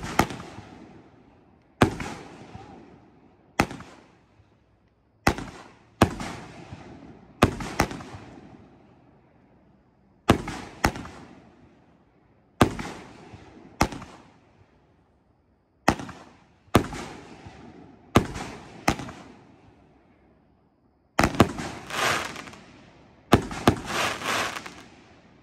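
A 12-shot 500 g firework cake firing its shots one after another: sharp bangs every second or two, each trailing off, many in pairs about a second apart (the shell lifting off, then bursting). Near the end the reports come in quick clusters.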